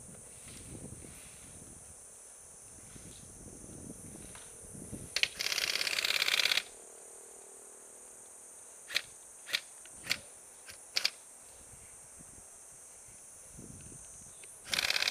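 Airsoft electric gun firing full-auto bursts of rapid clicks, one about five seconds in lasting roughly a second and another starting near the end, with about five sharp single cracks in between. Insects buzz steadily in a high, even drone underneath.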